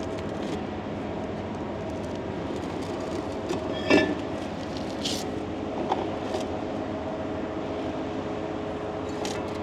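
Steady machinery hum, with one sharp metallic clank that rings about four seconds in and brief hisses after it.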